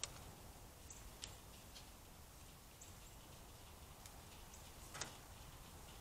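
Near silence broken by a few sharp clicks: one at the start, one about a second in and one about five seconds in. The clicks are a red-bellied woodpecker's bill and feet tapping on the wire cage feeder and seed tube as it takes seed.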